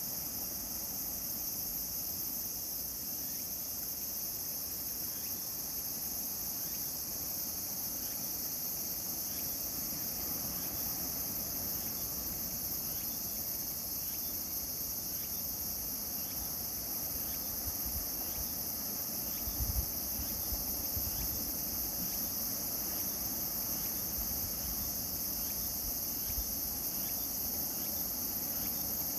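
Steady, high-pitched chorus of insects chirring without a break, over a low, uneven rumble of surf from the typhoon-swollen Pacific. A brief low thump, like a gust on the microphone, about two-thirds of the way through.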